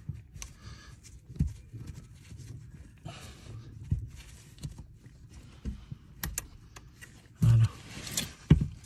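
Scattered light clicks and knocks of gloved hands and small metal parts being handled at a car's brake pedal bracket under the dashboard, with a louder bump near the end.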